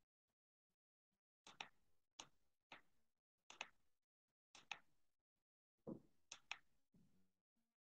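Faint, irregular computer mouse clicks, about one or two a second, over near silence.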